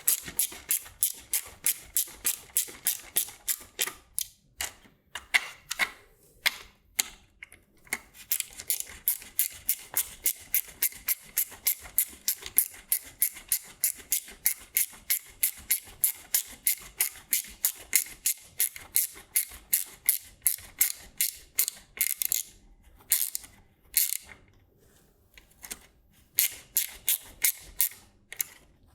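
Hand ratcheting driver clicking as it tightens small hex-head machine screws: rapid, even clicks about five a second, in runs broken by short pauses as it moves from screw to screw.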